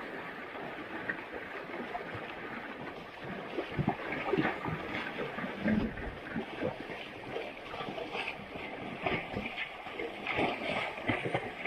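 Asian elephants wallowing in river mud and water: irregular splashing and sloshing over a steady wash of water, the splashes coming thicker from about four seconds in.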